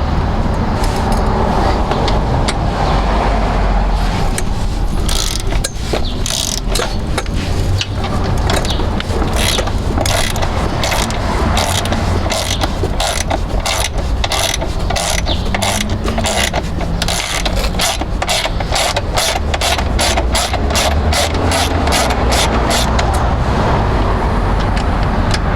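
A ratchet clicking in quick runs as screws and bolts on a Can-Am Ryker's rear trim are turned out, over a steady low rumble.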